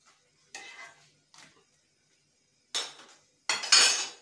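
A few short clinks and scrapes of kitchen utensils against cookware, with quiet gaps between them and the loudest clatter near the end.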